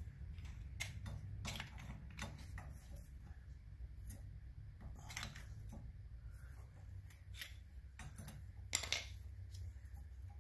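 Front brake caliper and new pads of an ATV being handled and fitted onto the disc: scattered light metallic clicks and clinks, with a sharper click about nine seconds in. A low steady hum runs underneath.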